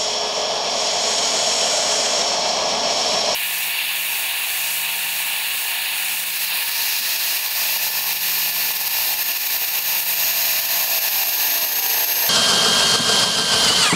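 HPT 20V cordless hammer drill in its low-speed setting, running steadily as a 13 mm bit bores into a steel square tube. Part of it is fast-forwarded, and the tone shifts abruptly about three seconds in and again near the end.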